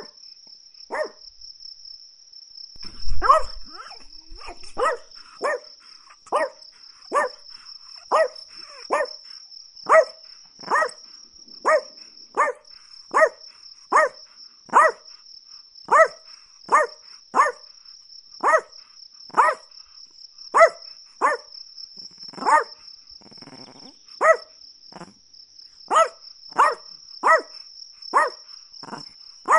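Chihuahua barking repeatedly in an even rhythm, a little more than one bark a second, after a brief lull at the start. Crickets chirr steadily in the background.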